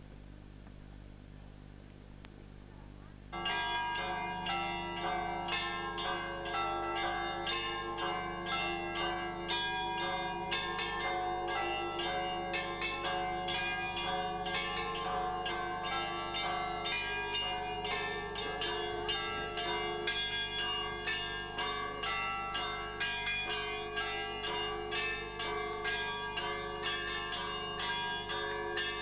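Orthodox church bells ringing: several bells of different pitch struck in a quick, continuous rhythm, each stroke left ringing, starting suddenly about three seconds in.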